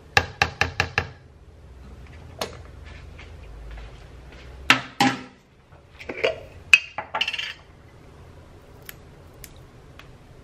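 Kitchen handling sounds: a spoon tapped five quick times against a plastic yogurt tub to knock off the yogurt, then louder knocks and clatter of containers and utensils being put down and a glass jar being opened.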